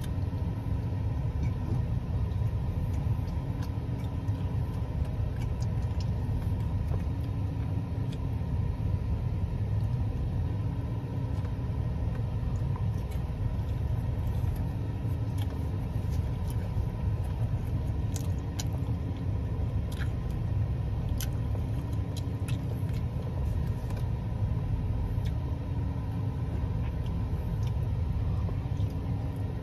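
Steady low rumble of a car engine idling, with a faint hum that swells and fades about every two seconds and a few faint clicks in the middle.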